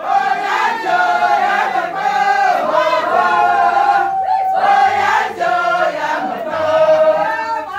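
A group of women singing a chant together, with long held notes.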